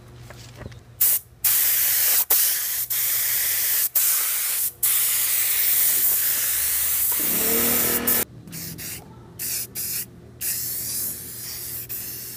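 Paint being sprayed with an air spray gun: long, loud bursts of hiss broken by brief pauses, then from about eight seconds in, shorter and quieter spray bursts.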